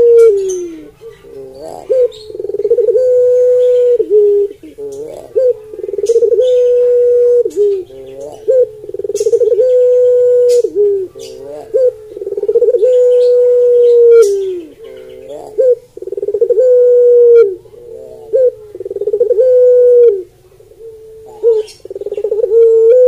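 Barbary dove (puter pelung ringneck dove) cooing: a series of long, drawn-out coos, each held steady for a second or two and falling away at the end, repeated about every three seconds, with shorter wavering coos between them.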